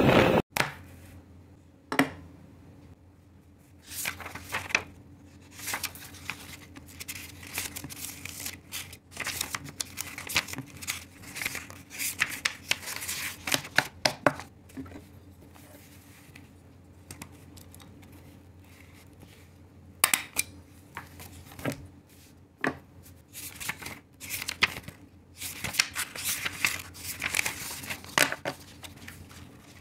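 Sheets of printer paper being handled: irregular crisp rustling and flipping, with a few sharp clicks and taps as the stack is knocked together. A faint steady low hum runs underneath. A loud burst of noise cuts off abruptly in the first half-second.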